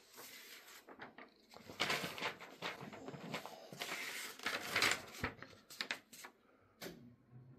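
Paper and cardboard packaging rustling and crinkling as it is handled, in quiet irregular bursts, busiest from about two to five seconds in.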